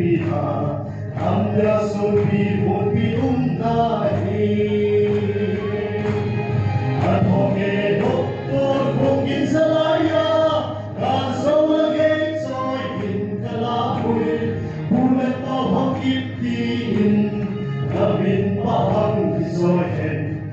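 A mixed group of men and women singing together into microphones, a sustained choral song with no breaks.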